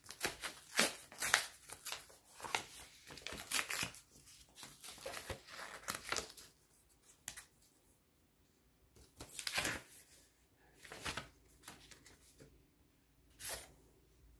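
White tissue paper rustling and crinkling as it is pulled out of a cardboard box and handled: a dense run of rustles over the first six seconds, then three shorter rustles.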